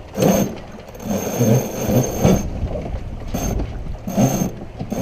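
Sailboat under sail: wind buffeting the microphone, with irregular rustles and knocks from the boat's gear every second or so.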